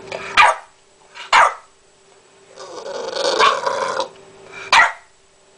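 Bulldog puppy coughing: three short, sharp coughs with a longer rough, noisy stretch between the second and third. The owner takes it for congestion, though the vet says he is fine.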